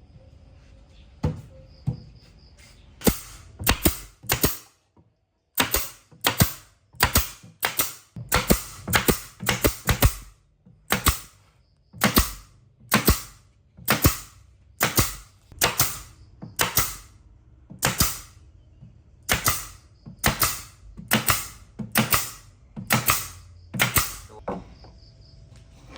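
A long series of sharp, loud impacts, one or two a second and sometimes in quick pairs. Two single strikes come first, the series proper starts about three seconds in, and there is a brief pause near five seconds.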